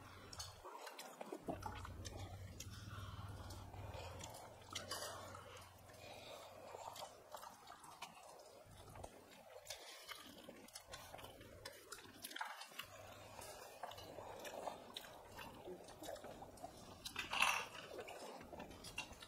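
Two people eating rice and curry with their hands: chewing and lip smacks, with soft squelching of fingers mixing rice and light clicks against steel plates. A brief louder burst of eating noise comes near the end.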